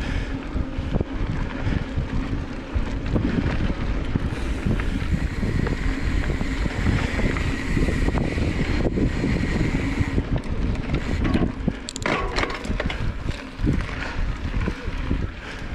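Wind buffeting the microphone over the rolling rumble and rattle of a mountain bike riding a dirt trail, with many small knocks throughout.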